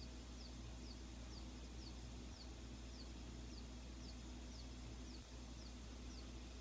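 Faint, high-pitched peeps, each falling in pitch, repeating about twice a second over a steady low hum. They come from a pan of eggs heating in water on a gas hob, and are heard as the eggs screaming.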